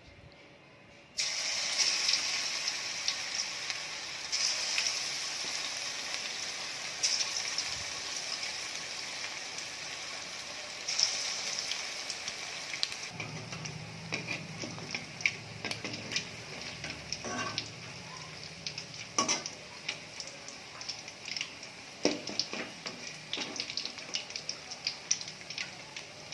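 Battered chicken 65 pieces deep-frying in hot oil, sizzling steadily. The sizzle starts suddenly about a second in. From about halfway, scattered clicks and scrapes of a ladle stirring the pieces join it.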